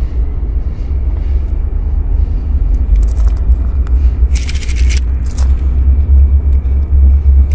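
Steady low rumble of BNSF diesel locomotives approaching slowly at the head of a freight train, with a brief hiss a little over halfway through.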